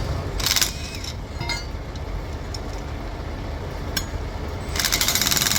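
Metal clinks and clanks of steel track parts being handled as the temporary ramp track is taken apart, with a hissing burst of noise near the end.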